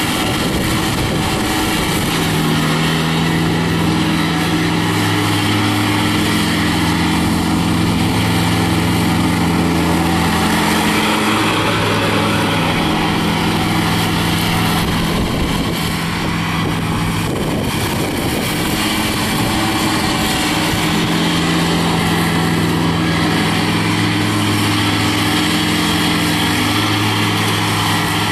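Kubota D902E three-cylinder diesel of a compact tractor running steadily at working speed while it drives across the lawn with its belly mower deck engaged, the blades cutting grass. The engine note sags briefly a little past halfway, then steadies again.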